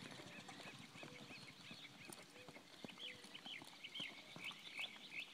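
Birds calling in quick, short chirps that grow busier about three seconds in, over faint clopping of a horse's hooves.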